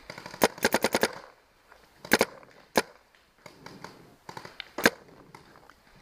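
Planet Eclipse Geo 3 paintball marker firing: a fast string of about seven shots in the first second, then a few single and paired shots.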